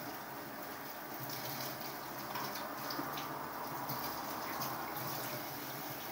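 Kitchen tap running steadily into a steel sink while morel mushrooms are rinsed under the stream by hand to wash out sand.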